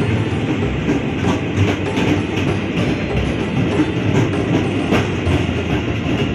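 Electric commuter train running past a platform, a steady rumble of wheels on rail with scattered clacks, heard under background music.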